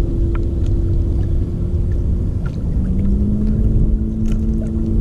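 A motorboat's engine running with a low rumble. Its steady drone shifts to a lower pitch about halfway through, then rises slightly.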